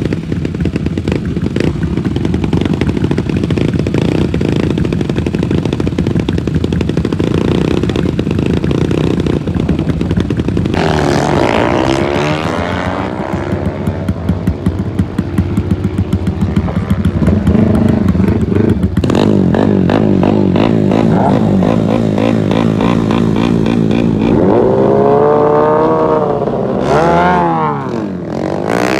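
Racing motorcycle engines running loud, their pitch rising and falling as they rev, once around the middle and again near the end.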